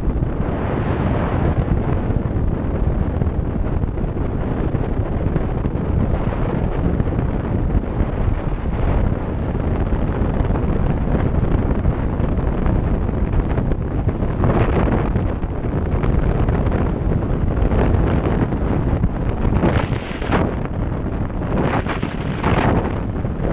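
Wind roaring over the microphone of a camera on a motorcycle travelling at road speed, burying the engine, with several louder buffeting gusts in the second half.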